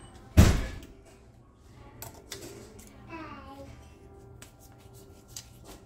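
A single loud knock about half a second in, then a young child's short babbling call around three seconds in, with a few light clicks.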